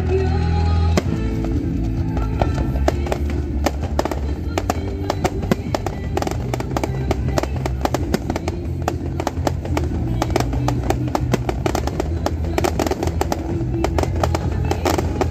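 Fireworks display: a dense, rapid run of cracks and pops from bursting aerial shells and firing ground fountains, with music playing underneath.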